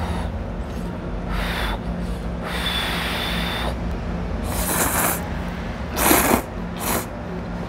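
A person slurping Samyang instant ramen noodles, about five noisy slurps of different lengths, the longest about three seconds in.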